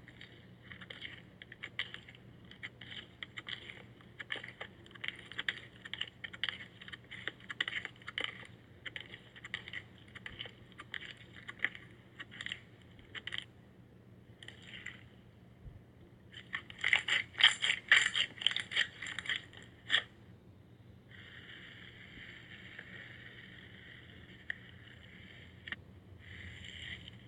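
Slime being squeezed and squished by hand: quick sticky clicks and crackling pops, densest and loudest about two-thirds of the way in, followed by a few seconds of soft steady hiss.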